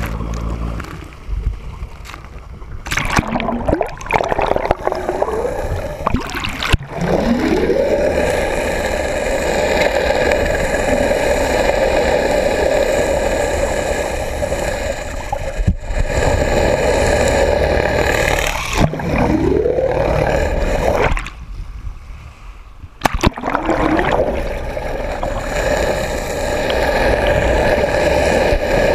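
A boat's engine and propeller heard through the water: a steady whine that rises in pitch several times and then holds level, with water gurgling and bubbling over the microphone.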